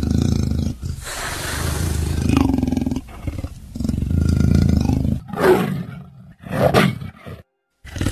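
Lion roaring and growling: a series of deep, rough roars broken by short pauses, with two sharper calls near the end.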